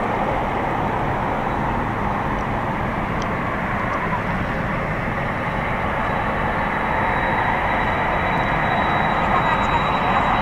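Twin jet engines of a Japan Airlines Boeing 767-300ER, General Electric CF6-80C2 turbofans, running at low taxi thrust as the airliner turns on the runway. A steady engine noise that grows a little louder in the second half, with a thin high whine coming in about halfway.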